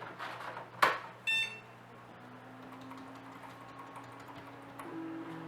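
Computer gear at work: a few light clicks and one sharp click about a second in, then a short electronic beep, then a steady low hum.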